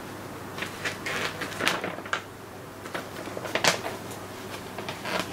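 Paper instruction leaflet being unfolded by hand, crackling and rustling in a series of short bursts, the loudest about three and a half seconds in.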